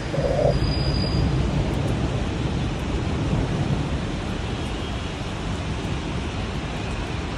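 Heavy rain falling steadily, with a low rumble beneath it that is strongest in the first few seconds.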